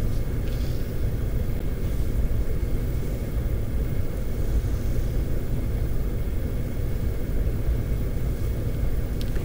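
Steady low rumble of room background noise, unchanging throughout.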